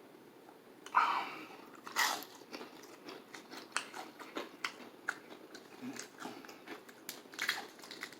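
Close-miked eating of crispy KFC fried chicken: two crunchy bites about a second apart, then chewing with many small crackling clicks.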